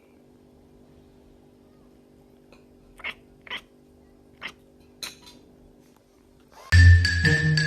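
A cat giving four short cries over a faint steady hum, then a loud marimba-like music track starting near the end.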